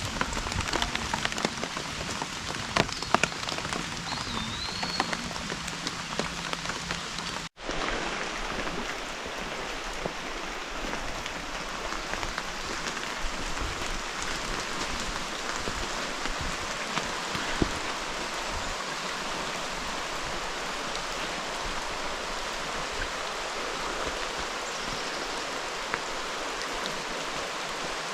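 Steady rain falling, an even hiss of drops with a few sharper taps in the first few seconds. The sound cuts out completely for an instant about seven seconds in.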